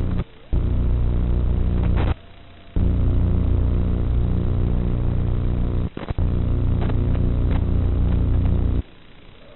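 Steady electrical buzz, most likely from the analog FPV video receiver feeding into the goggles' recording. It cuts in and out abruptly several times, with short clicks at the breaks.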